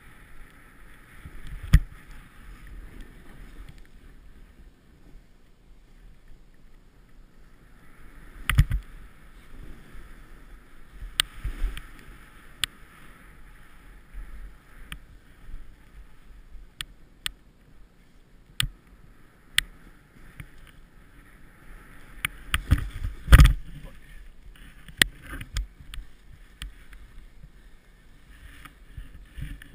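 Snowboard sliding and carving through deep powder snow: a steady hiss with scattered knocks and thumps as the board and rider hit bumps, the loudest thump about two-thirds of the way through.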